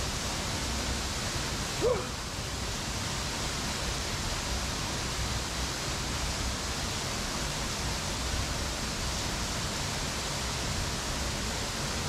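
Waterfall rushing steadily, a constant hiss of falling water. About two seconds in, a short cry rises and falls in pitch over it.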